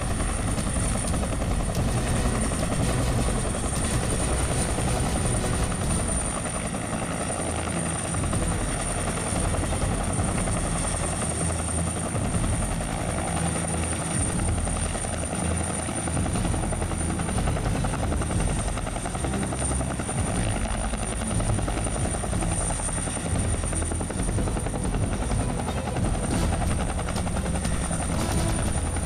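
Huey-type military helicopter hovering low with a load line slung beneath it: the steady beat of the rotor under a constant high turbine whine.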